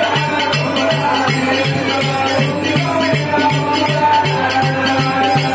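Live oggu katha folk music: a drum keeps an even beat of about three strokes a second under rattling, jingling percussion and a bending melody line.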